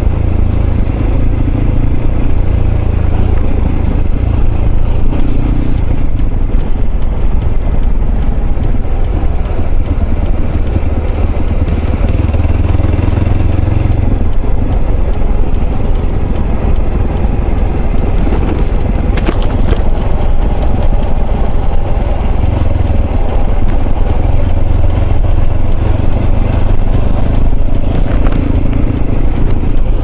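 Mondial RX3i Evo's single-cylinder engine running steadily as the motorcycle rides slowly over a gravel dirt road, with a heavy low rumble and tyre noise on the loose surface. A few sharp clicks of stones or rattles come about two-thirds of the way in and again near the end.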